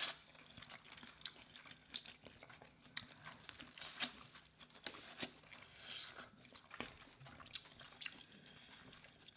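Faint close-up eating sounds from a seafood boil: chewing and mouth smacks, heard as a scattered run of short, sharp clicks.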